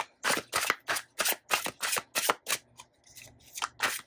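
A deck of tarot cards being shuffled by hand: a quick run of short papery slaps, about four a second. It eases off briefly about three seconds in, then a few more slaps follow near the end.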